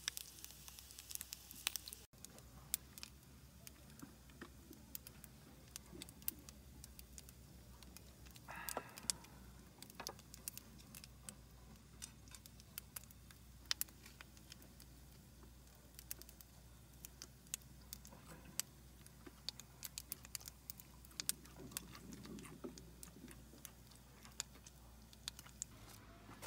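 Faint, irregular crackles and pops from a small wood-burning stove with a pan of food cooking on top.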